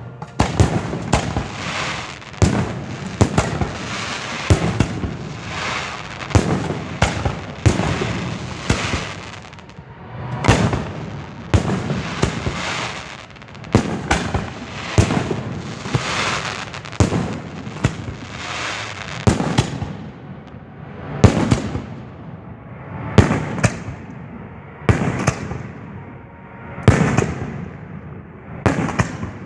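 Professional fireworks display heard close to the firing position: a rapid string of booming launches and bursts, one after another, with crackling between them. In the last third the booms come further apart, about one every two seconds.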